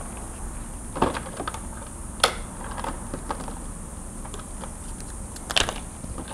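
Scattered light clicks and taps of small parts and tools being handled on a workbench, with a sharper click about two seconds in and a short cluster near the end.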